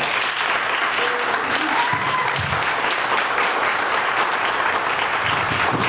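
Audience applauding steadily, welcoming a speaker to the podium.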